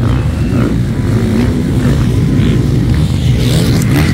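Motocross dirt bike engines revving and running at race speed, a steady loud engine sound with the pitch wavering as the riders work the throttle.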